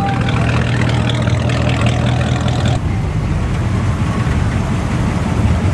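Classic cars' engines running at low speed as they cruise slowly past, a steady deep rumble. The sound changes abruptly about three seconds in.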